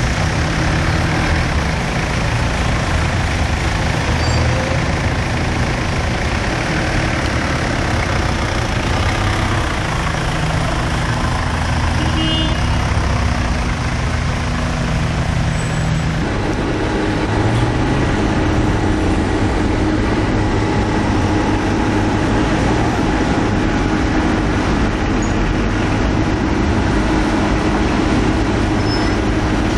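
Diesel truck engines idling with a steady low hum; the pitch of the hum changes about halfway through.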